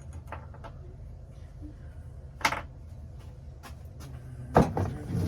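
A few sharp knocks and clatters, the loudest about four and a half seconds in and followed by a short rattle, over a steady low hum.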